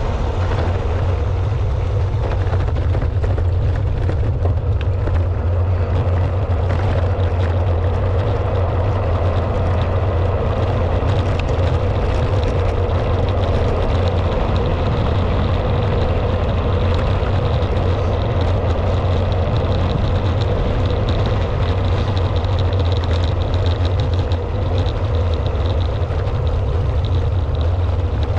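Steady wind rumble on the microphone of a camera mounted on a moving bicycle, with tyre noise from the coarse road surface underneath.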